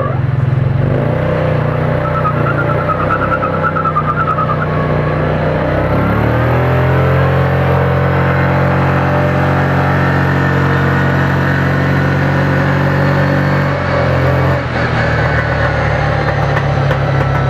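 Small 500 cc petrol engine of a child-sized Bugatti Veyron replica car running; about six seconds in it revs up and holds a steady higher speed as the car drives off, then drops back near the end.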